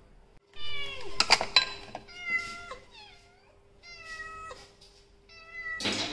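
Persian cats meowing for food, about five separate meows each bending in pitch, some from different cats. There are a few sharp crackles about a second in.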